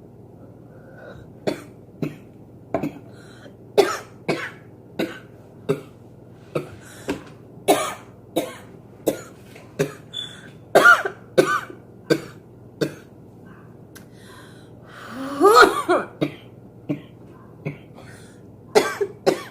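A girl coughing over and over, a single short cough roughly every half second to second. About three-quarters of the way through comes a longer, louder coughing fit with voice in it.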